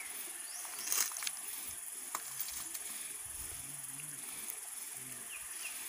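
Steady high-pitched insect chorus of crickets or cicadas, with a few faint clicks from hands working a small bowl.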